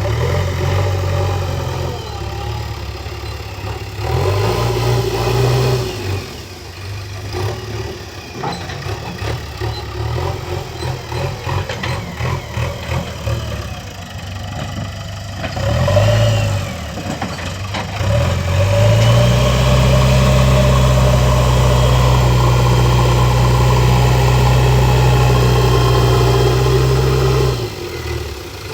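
A JCB backhoe loader's diesel engine working: it rises in revs briefly a few times, then revs up about two-thirds of the way in and holds steady at high revs for about eight seconds before dropping back near the end.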